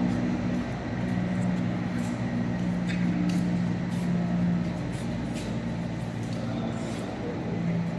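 Poultry feed mill mixer machine running with a steady hum, a few faint ticks over it.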